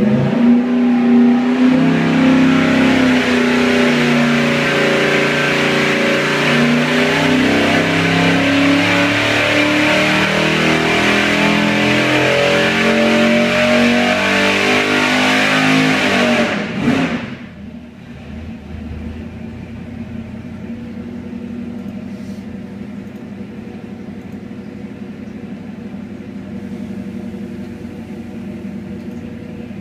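Carburetted Holden 308 V8, stroked to 355 cubic inches, making a full-throttle pull on an engine dyno, climbing in revs under load for about sixteen seconds. Then the revs drop quickly and it settles to a steady, much quieter idle.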